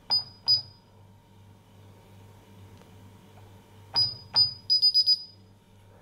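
Paradox alarm keypad beeping as its keys are pressed: two short high beeps at the start, two more about four seconds in, then a quick run of about five short beeps. That run is the keypad's confirmation tone that the entry was accepted.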